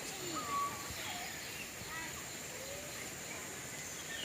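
Aviary birds giving short, scattered whistles and chirps at several different pitches, over a background of distant people talking and a steady high-pitched tone.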